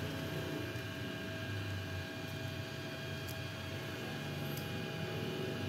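A fan running steadily: a low hum with a few faint, unchanging whining tones above it.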